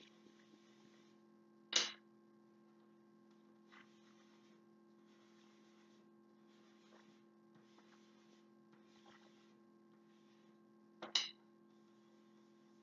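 Soft pastel chalk rubbing on cardboard in short, faint, scratchy strokes over a steady low electrical hum, with two sharp clicks: one about two seconds in, one near the end.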